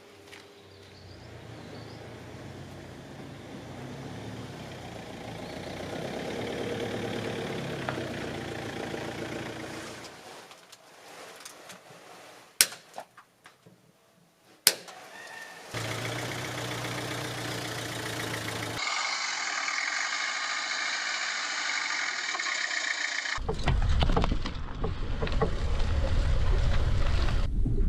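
A car's running sounds across several cut clips: steady engine and road noise that builds over the first ten seconds, a quieter stretch with two sharp knocks, then more steady running noise, loud and low near the end.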